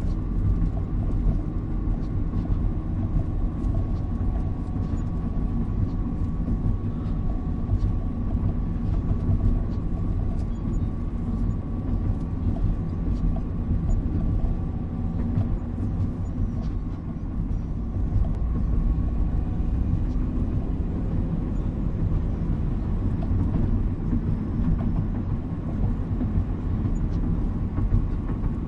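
Steady low rumble of a car driving on wet pavement, heard from inside the cabin, with a faint steady whine running through it.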